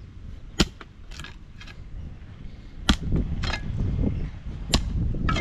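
Hand tools knocking against stones and ballast: a string of sharp clinks and knocks about a second or two apart. A low rumble rises from about three seconds in.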